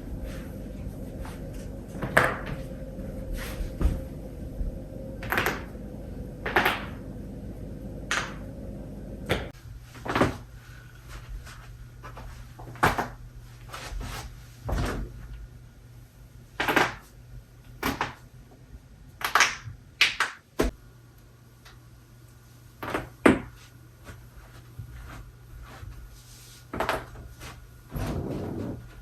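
A person's joints cracking: a series of short, sharp pops and cracks from the back, neck and knuckles, one every second or two.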